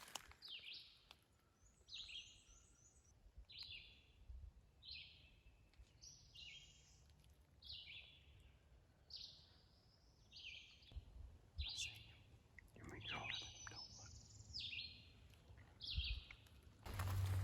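A songbird singing, short high downslurred phrases repeated about once every second or so, faint. A brief rustle about two-thirds of the way through.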